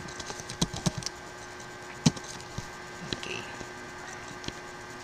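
Computer keyboard keystrokes and clicks: a few sharp taps with gaps between them, over a faint steady electrical hum.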